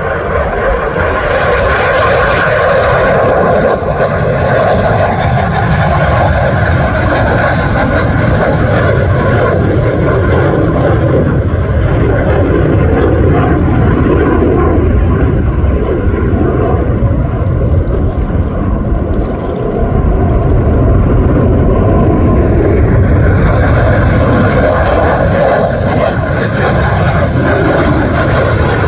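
Fighter jet engines running with a loud, sustained roar and a steady whine, easing briefly about twenty seconds in before coming back up.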